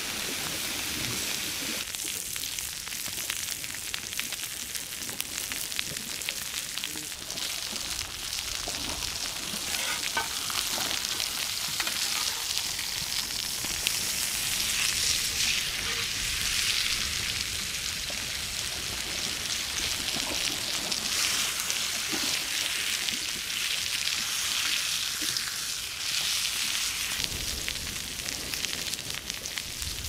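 Onglet (hanger) steak sizzling on a hot ridged cast-iron grill pan: a steady frying hiss full of fine crackles as the meat sears.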